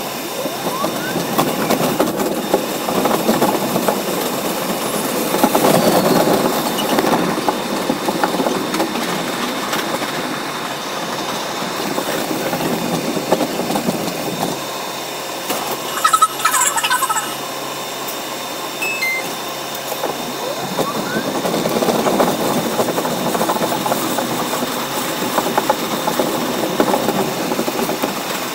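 Running noise of an R62A subway car on elevated track, sped up about four times: a dense wheel-and-motor rumble that swells and eases. There is a brief higher-pitched burst a little past halfway.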